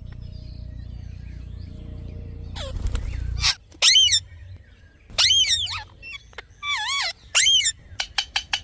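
Parrot calling loudly in a series of short, pitched squawks that arch up and fall, starting about three seconds in and turning into quick sharp chirps near the end. Before the calls there is a low rumbling noise.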